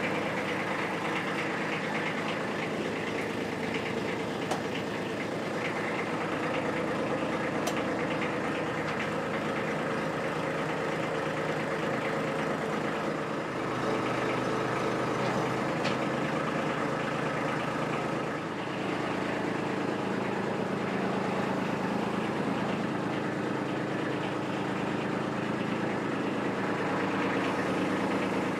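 Kubota B2601 compact tractor's three-cylinder diesel engine running steadily while the three-point hitch hydraulics are worked. The engine note shifts about halfway through and again a few seconds later.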